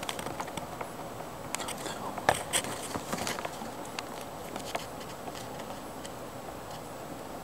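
Scattered sharp clicks and ticks, a few a second and uneven in spacing, over a steady hiss.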